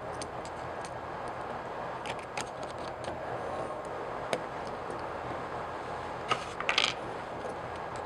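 Small sharp clicks and ticks of the springs and metal cam parts of a Harken 150 Cam-Matic cam cleat being handled as the springs are taken off, over a steady background hiss. A few scattered clicks come first, then a quick cluster near the end.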